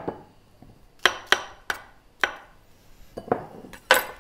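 Knife chopping chestnut mushrooms on a wooden chopping board: a few sharp, irregularly spaced strikes, the loudest near the end.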